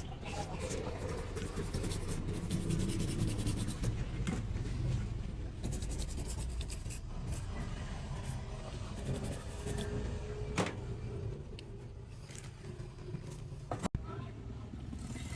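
Steady low rumble of motor traffic, with scattered light clicks and taps of small parts being handled on a workbench.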